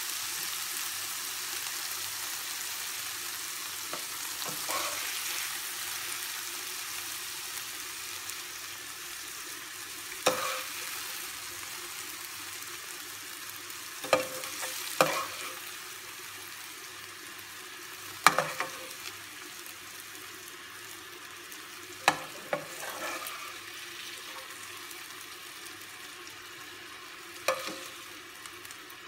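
Chicken breast pieces sizzling in hot oil in a nonstick frying pan, the sizzle slowly fading, with sharp clinks of a metal slotted skimmer every few seconds as the chicken is scooped out.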